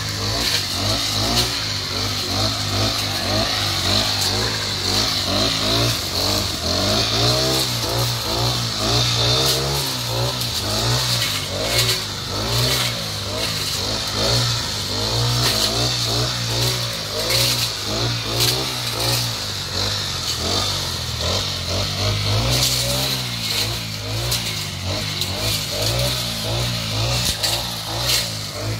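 Petrol brush cutter running while cutting overgrown grass and weeds, its small engine revving up and down over and over, with a steady high whine above it.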